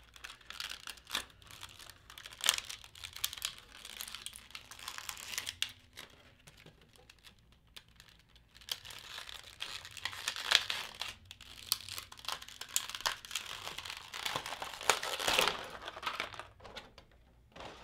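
Clear plastic packaging crinkling and rustling in the hands as a small accessory bag is handled and opened, with a few sharp plastic clicks. It comes in two spells with a quieter pause of a few seconds in the middle.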